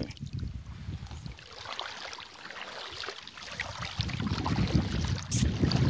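Wind buffeting the microphone in a low, uneven rumble that grows stronger about four seconds in, with faint scattered clicks and a short hiss near the end.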